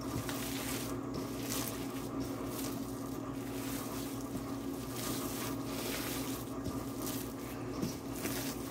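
Gloved hands mixing a wet meatloaf mixture of ground meat, breadcrumbs and barbecue sauce in a bowl, over a steady low hum.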